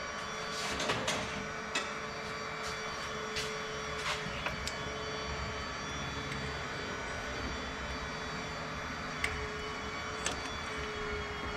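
Steady background hum with a constant tone, broken by scattered short clicks and clinks of hand tools at work on the spark plugs. Most of the clicks come in the first few seconds.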